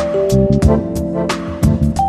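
Background music: a melody of held notes stepping up and down over a steady beat.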